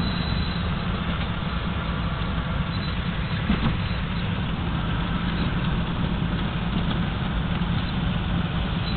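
Light twin-engine aircraft's propeller engines running steadily, heard from inside the cabin as an even, low drone.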